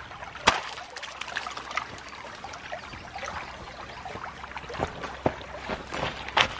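Water trickling, with a sharp knock about half a second in and a few lighter clicks and knocks near the end.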